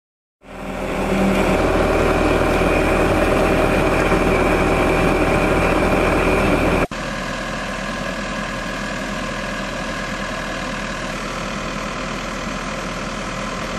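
Drilling rig's engine running steadily as it bores. About seven seconds in it cuts to a quieter, steady run of the same kind of machinery.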